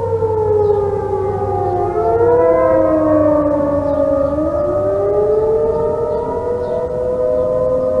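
Several outdoor tornado warning sirens, among them a Federal Signal 2T22 and A.S.C. T-128s, sounding the attack signal together. Their pitches rise and fall out of step with one another; the lowest tone slides down for about four seconds, then climbs back up.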